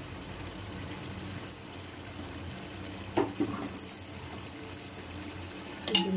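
A pot of chicken masala gravy cooking on a high gas flame: a steady low hum with scattered faint pops and clicks, and a sharper knock near the end.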